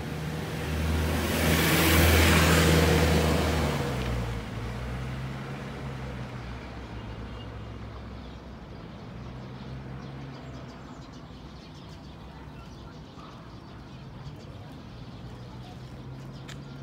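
A motor vehicle passing close by: engine and tyre noise swell to a peak about two seconds in, then fade away over the next few seconds, leaving a faint steady street hum.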